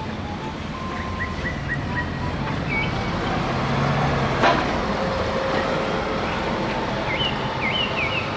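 Street traffic: a double-decker city bus driving past, its engine and tyre noise over steady road noise, with one sharp knock about halfway through. A few short high chirps come through early on and near the end.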